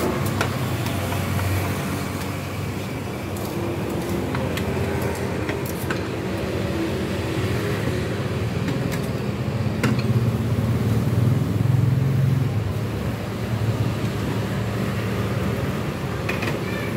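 Roadside traffic running steadily, a passing vehicle swelling louder about ten to twelve seconds in, with a few light clinks of tongs and utensils against bowls.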